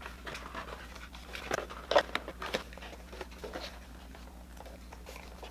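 A small cardboard shipping box being folded and creased by hand: irregular crinkles, scrapes and light taps, loudest about two seconds in.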